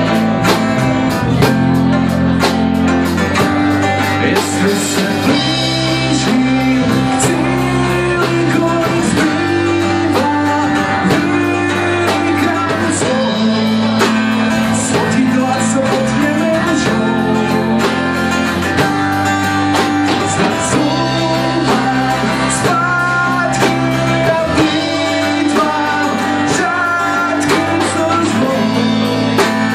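A small band playing a song live, unplugged: guitars with singing.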